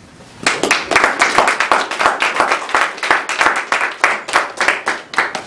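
A small group of people applauding with quick, distinct hand claps that start about half a second in and die away near the end.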